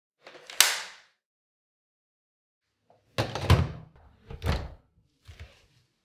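Hard plastic click of a Dyson V8 cordless vacuum's wand snapping into the machine body, about half a second in. A few seconds later come three groups of plastic knocks and clunks, the loudest about three and a half seconds in, as the vacuum is set onto its wall dock.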